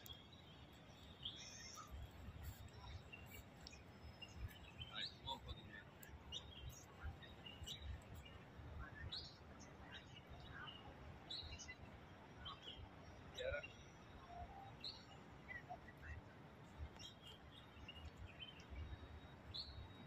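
Soft, scattered bird chirps, short separate calls coming every second or so, over a faint low rumble.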